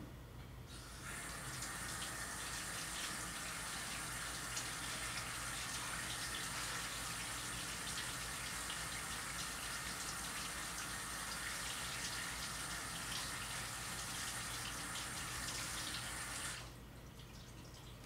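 Sink tap running steadily, turned on about a second in and shut off near the end, heard from another room.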